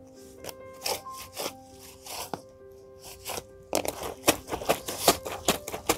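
A clothes-scrubbing brush scraping over a wet garment on a concrete floor, in short, quick strokes that come thicker and louder from about halfway through, over soft background music.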